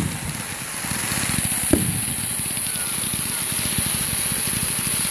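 Fireworks display: a single boom about two seconds in, over a steady crackling hiss from the bursts.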